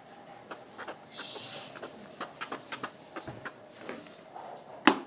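Slime being stirred and worked in a plastic pot: irregular sticky clicks and squelches, with a brief hiss about a second in and one sharper, louder click near the end.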